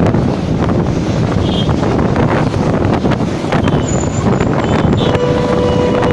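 Road traffic noise heard from a moving vehicle, with wind rumbling on the microphone. About five seconds in, a vehicle horn sounds one steady held note.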